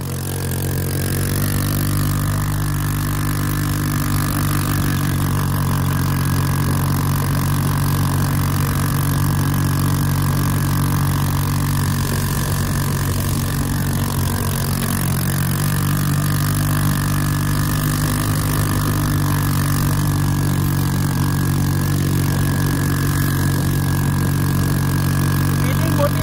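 Dune buggy engine running steadily while the buggy is driven, a constant drone whose pitch barely changes.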